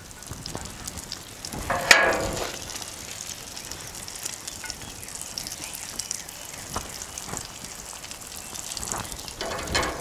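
Food sizzling on a Blackstone flat-top griddle, a steady crackle, with a brief louder noise about two seconds in.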